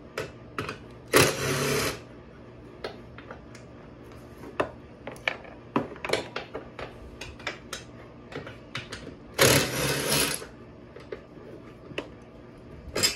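Cordless drill with a socket spinning out the half-inch seat bolts of a golf cart in two bursts of about a second each, about a second in and again near the middle. Short metal clicks and clinks of the bolts and tool come in between.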